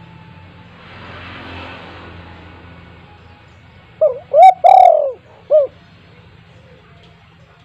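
Spotted dove (tekukur) cooing: one phrase of four notes about four seconds in, the longest note arching up then falling in pitch. Before it, only a faint hiss.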